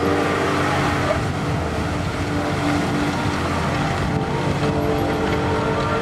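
Case IH Quadtrac tracked tractor running steadily under load as it pulls a disc cultivator, with sustained background music chords underneath.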